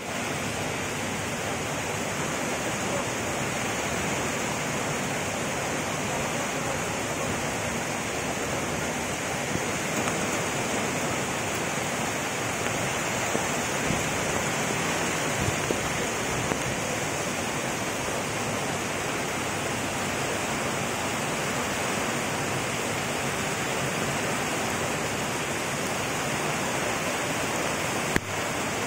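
Steady rushing of a flooded river, its muddy water swollen by heavy rain and pouring fast along and over its walled bank. There is a brief click near the end.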